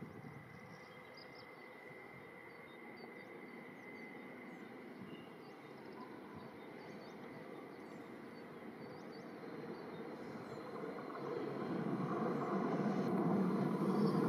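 Birds chirping faintly over low outdoor background noise; from about ten seconds in, the rumble of an approaching train grows steadily louder.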